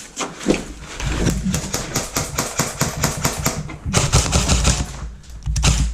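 Airsoft rifle fire: rapid strings of sharp clacking shots in two long runs, with a short break a little past halfway.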